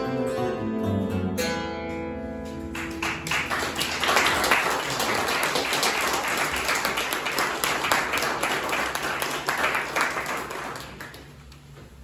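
The last notes of a song on hammered dulcimer and acoustic guitar ring out, then an audience applauds for about eight seconds, dying away near the end.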